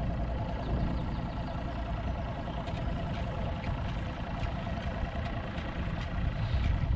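A boat motor running steadily with a fast, even pulse, with faint scattered ticks over it.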